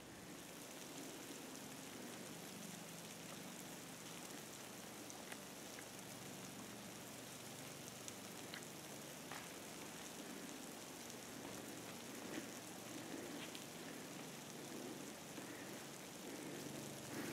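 Dogs digging and nosing through deep, dry snow: a faint, steady hiss with scattered soft crackles and ticks.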